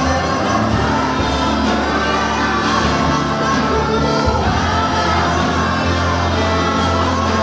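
Live gospel band music with group singing, over sustained bass notes.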